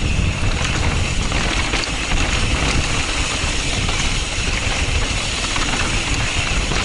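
Mountain bike rolling fast down a rutted dirt singletrack: a steady loud rush of wind on the microphone with tyre rumble and small rattling clicks from the bike.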